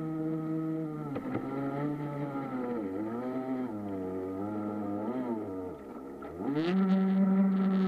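Radio-controlled model boat's motor running. Its pitch drops about a second in, wavers, and dips low near six seconds as the throttle changes, then rises and holds at a higher, louder speed near the end.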